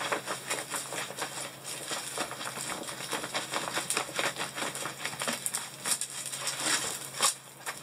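Diamond painting canvas with its plastic cover film crinkling and rustling continuously as it is rolled by hand in the opposite direction.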